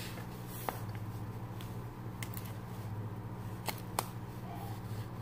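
Homemade slime being squeezed and poked by hand, giving a few sharp clicks and pops, about five in all, over a steady low hum.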